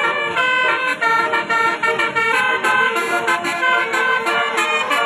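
Indonesian 'telolet' bus horn playing a melody: a quick run of horn notes, several sounding at once and changing a few times a second.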